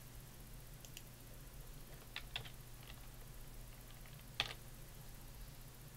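A few separate computer keyboard key presses, the loudest about four and a half seconds in, over a faint steady low hum.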